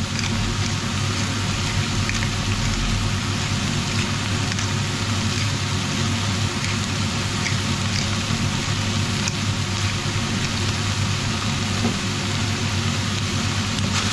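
Ground beef and bacon sizzling in a pot over medium heat, with scattered small pops over a steady low hum.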